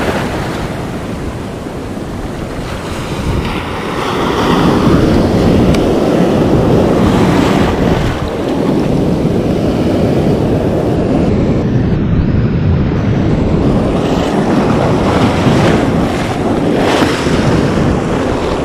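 Breaking surf churning and washing right around the microphone, louder from about four seconds in, with wind buffeting the microphone.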